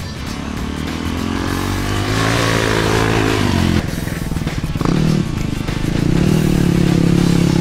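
Dual-sport motorcycle engine accelerating, its note rising for a few seconds and then cutting off suddenly. After a short blip, it runs on at a steady, higher note, with music underneath.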